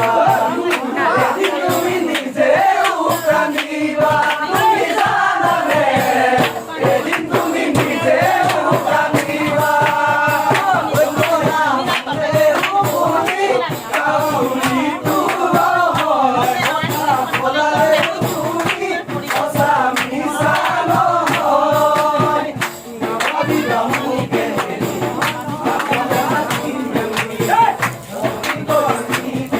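Background music: a song with a singing voice over a steady, busy percussion beat.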